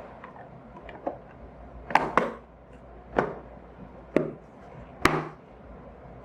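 A series of about six sharp wooden-sounding knocks, roughly one a second, irregular, with a quick double knock about two seconds in.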